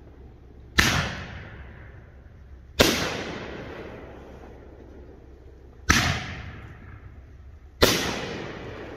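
Four aerial shell bursts from a 'Disco Ball' consumer firework cake: each a sharp bang with a fading rumbling tail, spaced about two to three seconds apart.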